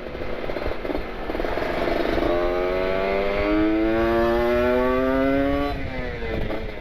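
Kawasaki Ninja RR 150 two-stroke single with an R9 carbon aftermarket exhaust, pulling hard under acceleration. After a couple of seconds of rough low-rev running, the engine note climbs steadily for about three and a half seconds. It then drops sharply as the throttle is closed.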